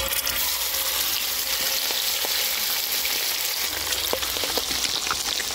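Masala-coated fish steaks sizzling in hot groundnut oil on a wide flat griddle as they are laid in one by one: a steady sizzle with scattered pops and crackles.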